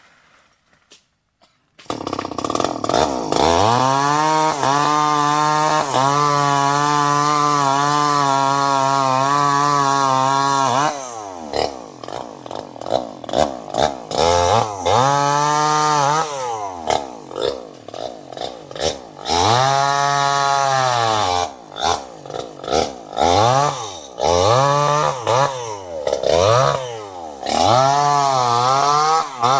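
Two-stroke chainsaw engine. After about two seconds of silence it revs up and is held at full throttle for about seven seconds. It then drops back and is revved repeatedly, the pitch rising and falling every second or two, with a few longer held revs.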